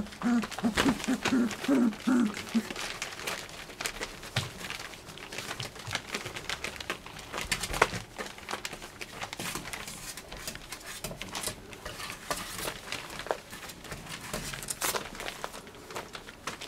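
Plastic sheeting and cloth crinkling and rustling under a litter of month-old puppies scrambling about in play, with many scattered crackles and light taps. A run of short, low grunting sounds comes in the first two or three seconds.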